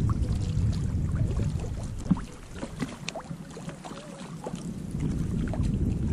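Small splashes and knocks of oars and water lapping against a PVC inflatable boat being rowed, over a low rumble that fades about two seconds in and comes back near the end.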